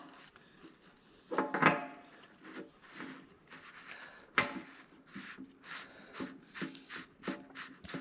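Handling noise of a steel hydraulic quick coupler being wiped with a cloth rag and fitted by hand: rag rubbing and small metal clicks, with one sharper click about four and a half seconds in.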